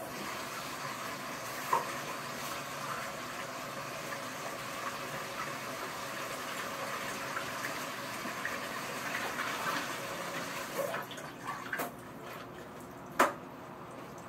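Water running from a tap in a steady rush for about twelve seconds, then stopping. A single sharp knock follows near the end.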